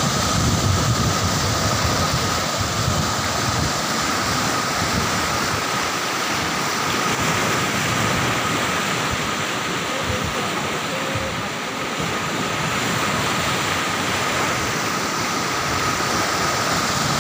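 Fast-flowing floodwater rushing through a swollen river, a steady, even noise of turbulent water.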